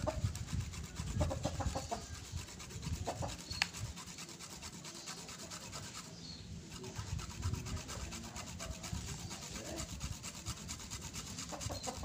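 Fresh turmeric root being rubbed on a flat metal hand grater: a continuous run of quick rasping strokes.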